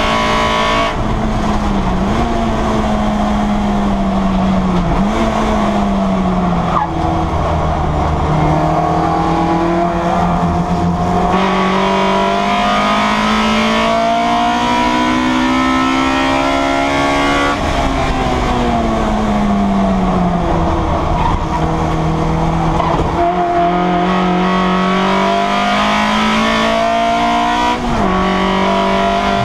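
Citroen Saxo race car's four-cylinder engine heard from inside the cabin at racing speed. The revs climb and drop sharply at quick gear changes, then make a long steady climb. After that they fall smoothly before picking up again, with another sharp drop near the end.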